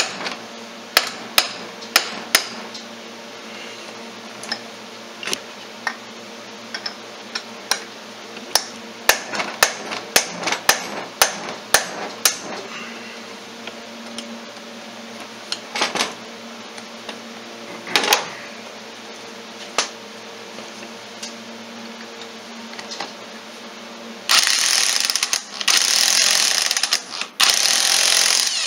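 Hammer blows, metal on steel, on a flywheel puller to break a rusted flywheel loose on a 1995 Polaris Sportsman 400 two-stroke engine: sharp strikes about once a second, thinning to a few spaced blows after about twelve seconds. Near the end an electric impact wrench runs in loud bursts on the puller bolt.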